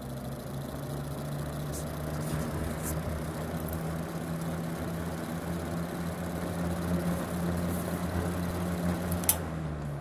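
Vintage GE WC2 mini 14-inch box fan running on low after startup, its motor humming steadily with an extra buzz. The owner suspects the buzz is a shading coil rubbing against the rotor. A sharp click comes near the end.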